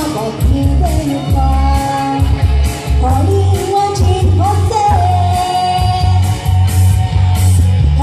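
A woman singing into a microphone over amplified backing music with a heavy, pulsing bass beat, holding long sustained notes.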